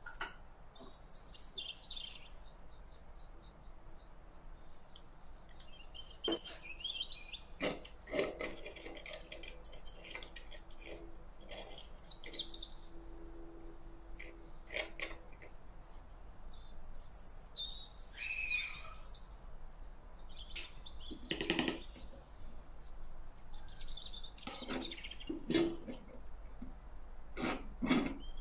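Birds chirping on and off in the background, with a few sharp clicks and taps from small metal utensils and a tiny aluminium pan being handled.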